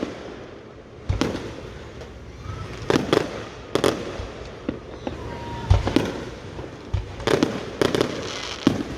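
Fireworks going off: a run of sharp booms and bangs, several in quick pairs, the loudest about six seconds in.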